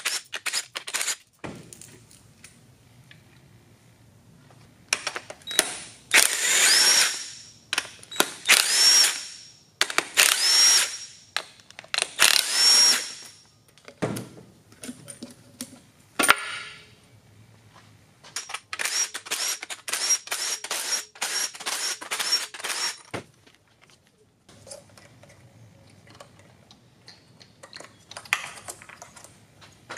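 Cordless drill backing out the ignition coil pack bolts on an LS3's valve cover: several runs of a few seconds, each starting with a rising whine as the motor spins up, then a quick string of short trigger pulls about two-thirds of the way through.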